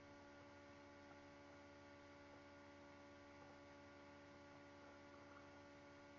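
Near silence with a faint, steady hum made of many even tones that do not change.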